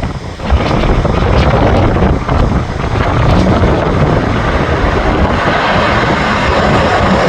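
Strong wind buffeting the microphone, mixed with the steady rushing noise of a jet aircraft's engines, loud after a brief lull in the first half second.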